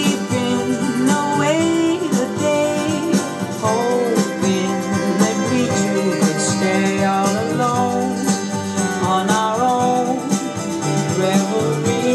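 Music: a guitar-backed song with a singing voice carrying the melody.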